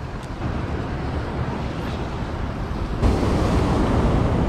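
Surf breaking and washing over jetty rocks, with wind rumbling on the microphone. The noise gets louder about three seconds in.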